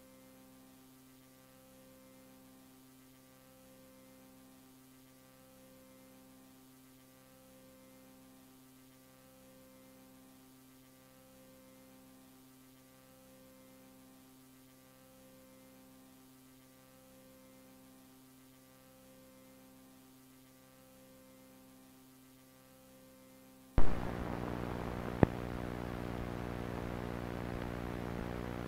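A faint low electrical hum that swells gently about every two seconds. Near the end it jumps with a sudden loud jolt into a much louder steady buzzing hum, with one sharp click a second and a half later.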